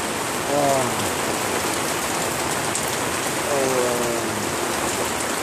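Steady rain falling, with a man briefly humming twice, the second hum a falling note.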